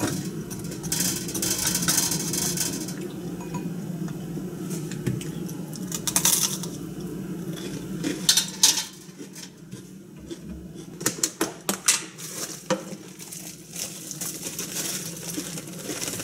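Kitchen dishes and utensils clinking and clattering as a ceramic bowl and tray are handled at the stove, with a cluster of clinks about two-thirds of the way through, over a steady low hum.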